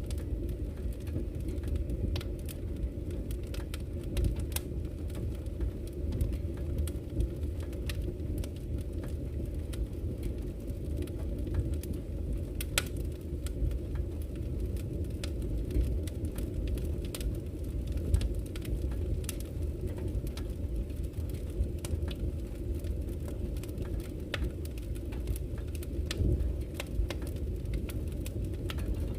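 Wood fire burning in a fireplace: a steady low rumble of the flames with frequent, irregular sharp crackles and pops from the burning logs.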